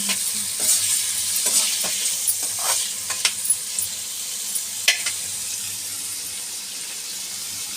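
Chopped tomatoes, onion and garlic sizzling in hot oil in a kadai, with a spatula scraping and clicking against the pan as they are stirred. The stirring clicks stop about five seconds in, and the sizzle goes on.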